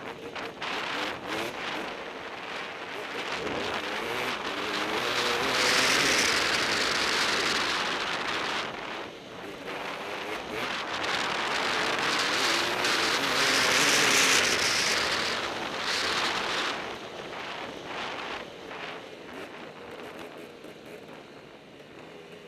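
Two-stroke enduro dirt bike engine revving up and down as it rides a dirt trail, buried under rushing wind buffeting on a helmet-mounted microphone and tyre-on-gravel noise. The rush swells loudest twice, about a quarter of the way in and again past the middle, then eases off near the end.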